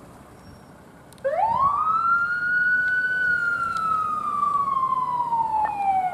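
Emergency vehicle siren switching on about a second in: it rises quickly in pitch, then winds slowly down in one long falling wail.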